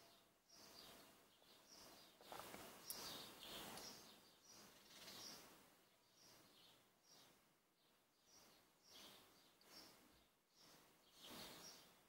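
Near silence: faint outdoor background with a few soft, brief bird chirps between about two and five seconds in.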